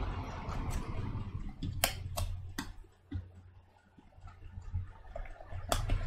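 Sharp plastic clicks as the plastic cover over a Mac Mini's heat pipes is pried loose by hand: three quick clicks about two seconds in and two more near the end.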